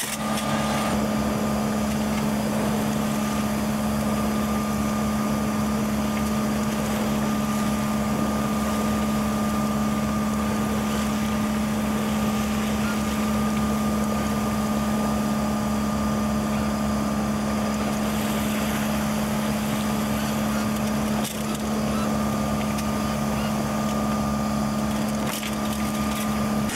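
Steady mechanical drone with a constant low hum that holds one pitch throughout, with a fainter higher tone above it.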